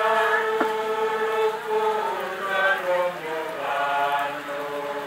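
Voices singing together in slow, drawn-out phrases, the notes held for a second or more, with two short breaks between phrases.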